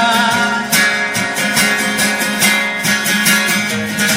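Instrumental passage of a worship song: an acoustic guitar strumming chords in a steady rhythm over a sustained background.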